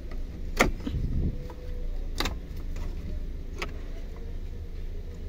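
A few sharp plastic clicks, spaced about a second and a half apart, as a dashboard power socket is worked loose from its trim panel by hand. A low steady hum runs underneath.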